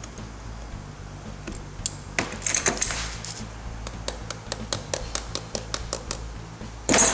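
Steel band clamp on a rubber CV boot being worked into place with pliers: a run of sharp metallic clicks and taps, loudest about two to three seconds in, with a louder clatter near the end.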